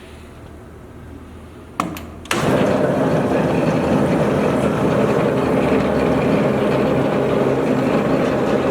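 Marvel Mark II vertical bandsaw being switched on: a few sharp clicks, then about two seconds in the machine starts up and runs with a loud, steady mechanical noise.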